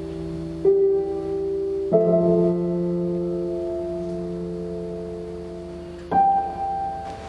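Slow background music of sustained chords. A new chord is struck about a second in, another at two seconds and another near the end, and each slowly fades.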